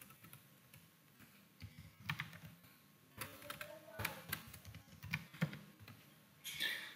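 Computer keyboard typing: soft, irregular keystrokes in small clusters as text is deleted and retyped.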